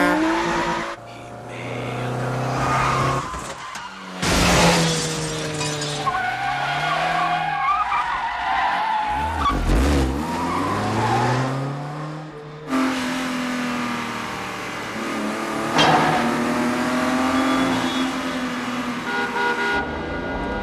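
Film car-chase soundtrack: car engines revving hard and tyres squealing, with cars passing by in falling pitch. The sound changes abruptly with the edits, with sudden loud bursts about four seconds in and again near sixteen seconds.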